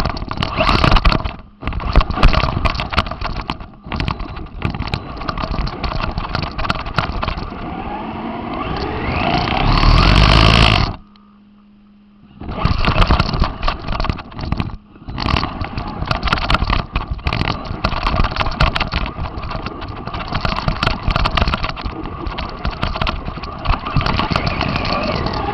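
RC car driving over rough ground, its motor running with constant rattling and crackling from the chassis and tyres. Near the middle the motor whine rises as it speeds up, then the sound cuts out suddenly for about a second and a half, leaving only a faint steady hum, before the driving noise resumes.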